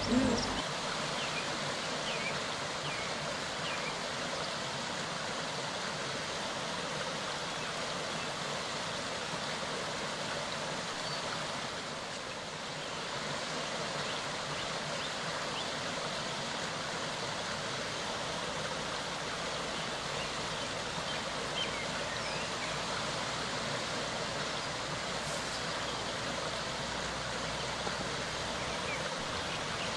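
Steady rushing of a clear mountain stream, an even wash of running water with no change in level.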